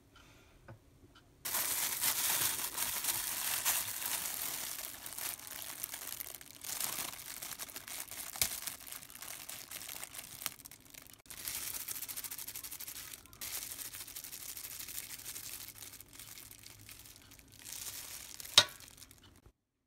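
Crinkling of thin plastic disposable gloves and rustling of salted napa cabbage leaves as they are handled and bent, coming in several stretches that stop and start abruptly. A single sharp click near the end.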